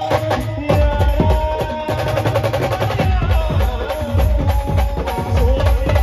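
Indian brass band music played loud through a large truck-mounted speaker stack: a held melody line over heavy bass beats and fast drumming.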